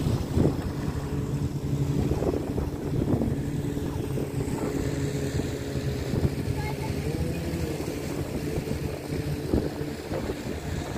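Jet ski engine running at a steady pitch, rising briefly and falling back about seven seconds in.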